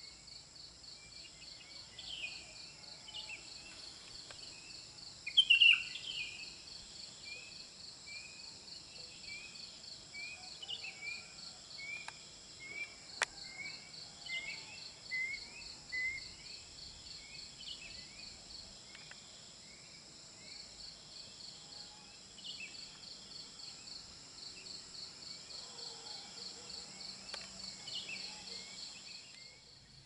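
Forest evening chorus: a steady, high insect drone with a fast pulsing trill, overlaid with short bird chirps repeated every second or so. A louder bird call stands out about five seconds in.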